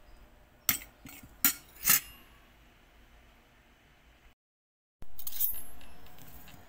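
Metal fork clinking against a ceramic plate: four sharp clinks in quick succession about a second in. After a brief cut to silence, a louder clatter comes in suddenly and slowly fades.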